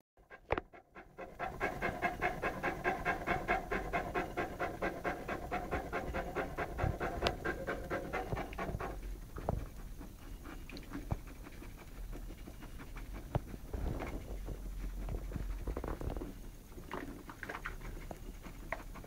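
Saint Bernard puppy panting in a fast, even rhythm, which stops about nine seconds in, leaving softer breathing and a few faint clicks.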